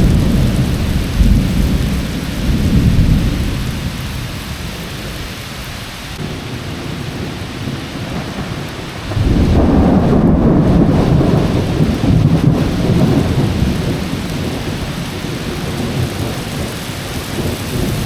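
Heavy rain pouring steadily, with rolling thunder. A rumble fades over the first few seconds, then a louder peal breaks suddenly about halfway through and rumbles on for several seconds.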